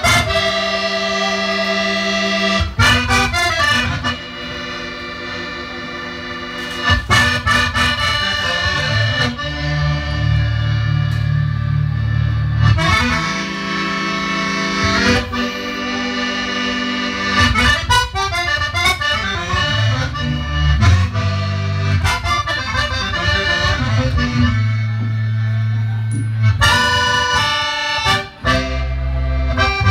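Zydeco band playing live, a squeezed accordion carrying the lead in sustained chords over a bass line and drums.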